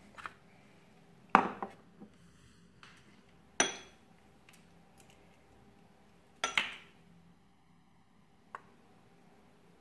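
Small glass bowl knocking and clinking against a plate as it is handled and set down: four separate knocks, the second with a short glassy ring.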